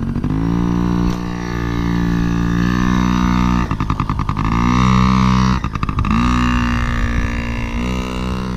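Yamaha PW50's small two-stroke single-cylinder engine revving under a rider, held at a steady pitch, then the throttle is chopped twice with a brief crackle and rolled back on, the pitch climbing again each time.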